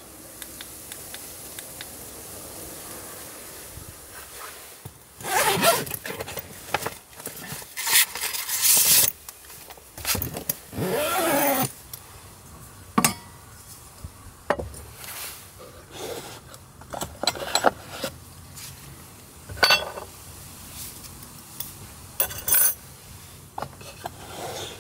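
Handling of camp kitchen things on a wooden counter: rustling and scraping of a plastic takeaway food container, followed by several sharp knocks and clicks as a metal cup and utensils are set down.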